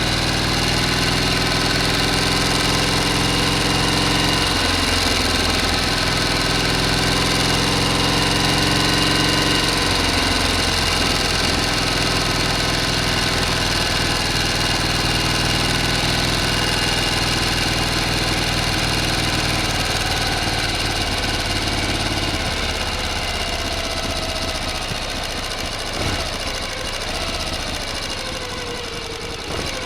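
A motor running steadily, its low end thinning out about two-thirds of the way through, with a single sharp knock near the end.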